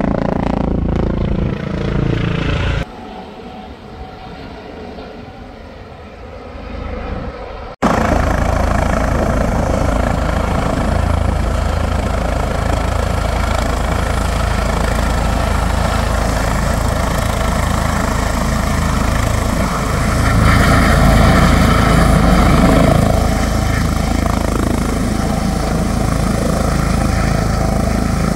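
Airbus H145 twin-turbine helicopter, first passing with its pitch falling. From about eight seconds in its rotor and turbine noise is suddenly loud and steady as it hovers low over the river, filling a slung Bambi Bucket.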